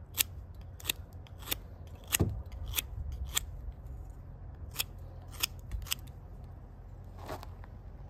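Swiss Army knife blade cutting into a thin stick of fatwood, giving a series of crisp clicks about one every half second. There is a pause of about a second midway before three more cuts, and a softer click near the end.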